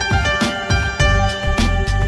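Background music with a steady beat, sustained melodic notes and a bass line.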